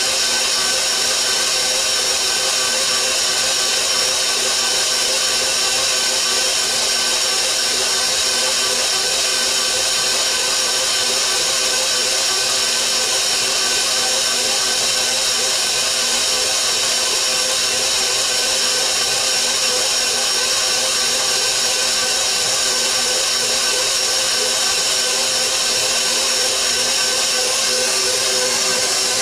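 Electric stand mixer running steadily with its dough hook kneading bread dough, a constant motor whine.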